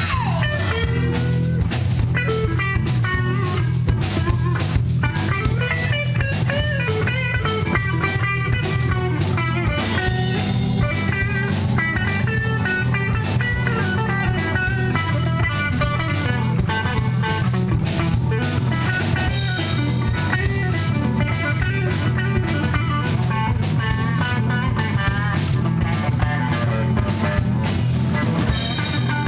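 Live blues-rock band playing without vocals: an electric guitar lead over drums, bass guitar and keyboards, with a steady beat.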